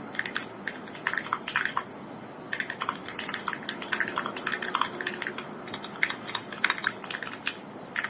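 Typing on an Akko ACR Pro Alice Plus mechanical keyboard with TTC Gold Pink linear switches: quick runs of crisp keystroke clacks, with a brief pause about two seconds in, stopping shortly before the end.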